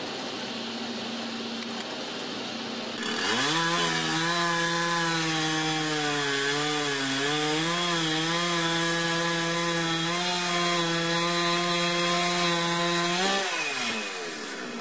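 Small two-stroke saw engine of a cart-mounted log saw running at high revs while cutting through a log. Its pitch wavers and dips under load, then falls away as it throttles down near the end. Before it starts there are about three seconds of steady machine noise.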